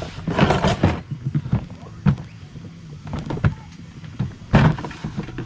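Knocks, clinks and rattles of containers and utensils being handled and moved about while someone searches for a jar of dried rosemary, at uneven intervals over a steady low hum.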